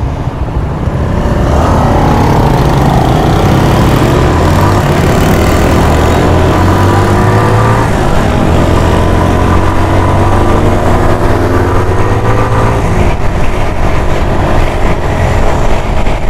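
A 150 cc motorcycle engine pulling away and accelerating up through the gears, its pitch rising several times and then holding steady near the end, with wind rushing over the helmet-mounted microphone.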